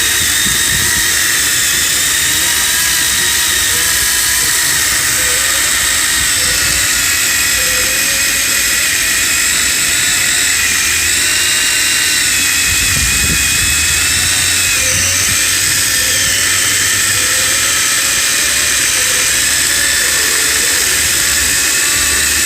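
Makita 36V battery chainsaw cutting through stringybark hardwood, its electric motor and chain giving a steady high whine whose pitch wavers slightly as the load on the chain changes.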